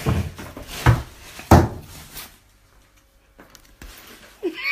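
Four dull thumps, roughly evenly spaced, in the first two seconds or so, then quiet room noise; a short voice sound near the end.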